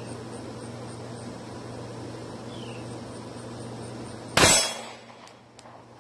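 A single 9mm pistol shot from a Glock 19 Gen 4, about four and a half seconds in, with a short ring-out. Two faint clicks follow about a second later.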